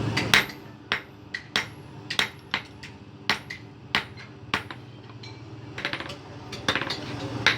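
Hand hammer striking leaf-spring steel on an anvil: irregular blows, about two a second, each with a short metallic ring.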